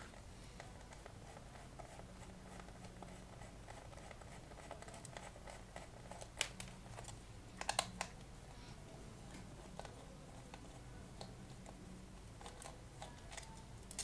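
Quiet handling noise from taking apart a metal switch assembly: scattered light clicks and scrapes of a screwdriver and small metal parts, with a few sharper clicks about six and a half and eight seconds in.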